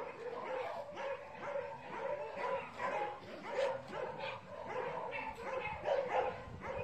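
Several dogs barking and yipping, their calls overlapping in a steady, unbroken din.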